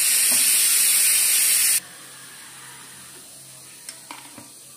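A loud, steady hiss that cuts off abruptly about two seconds in, followed by a quiet stretch with a few light clicks, like steel utensils touching a steel plate.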